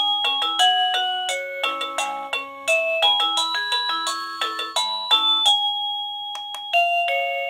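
Plug-in receiver of a KooPower wireless doorbell playing electronic melodies at its loudest volume setting. A quick run of beeping notes ends on a long held tone, and near the end a two-note ding-dong chime starts as it cycles back to the first melody.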